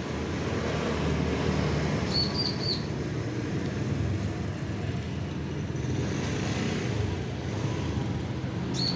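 Steady background traffic rumble, with three short high chirps about two seconds in.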